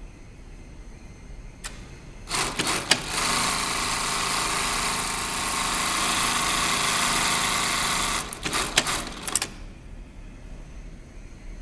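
XL 8810BTF industrial single-needle sewing machine starting in a few short bursts, then running steadily at speed for about five seconds. It stops after a few more short bursts of stitching.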